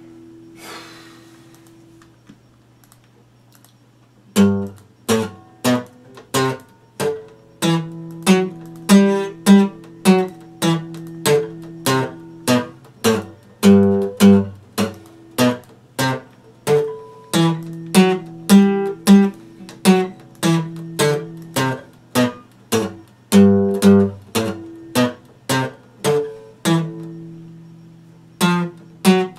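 Epiphone acoustic guitar: a chord rings out and fades, then after a short pause chords are strummed in a steady rhythm, about two strokes a second.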